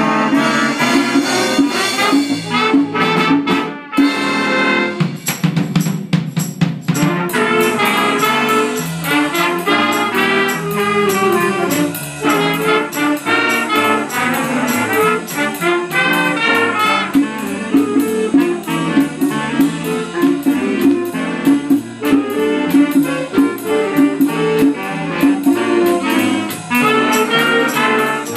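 Youth jazz band playing an upbeat tune: trumpets and saxophones over a drum kit keeping a steady cymbal beat, with a few sharp ensemble accents about three seconds in.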